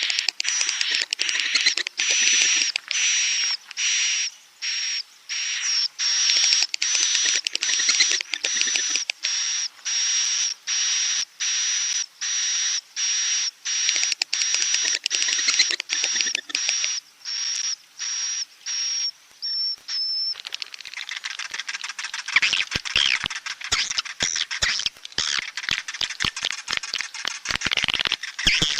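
Recorded edible-nest swiftlet roosting calls, the 'suara inap' lure sound played in swiftlet houses. Buzzy chirps repeat about three times every two seconds, then from about 20 seconds in they give way to a denser jumble of twittering chirps and clicks.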